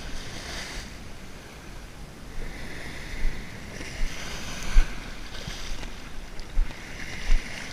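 Ocean surf washing in and hissing, one wave swelling about two and a half seconds in and fading by about five seconds, another building near the end. A few brief low thumps of wind on the microphone.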